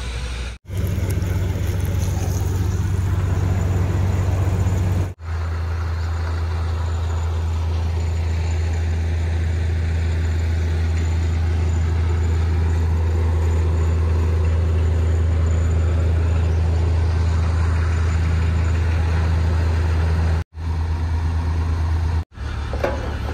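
A tracked excavator's diesel engine running at a steady idle, a constant low hum broken by a few brief gaps.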